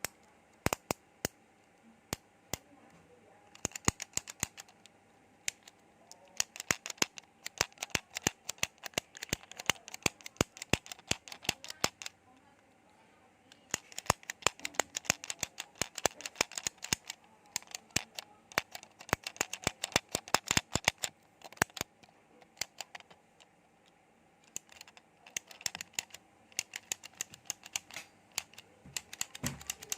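Rapid, sharp clicking in irregular runs of several seconds, sparse at first, then dense, with short breaks about twelve seconds in and again about twenty-three seconds in.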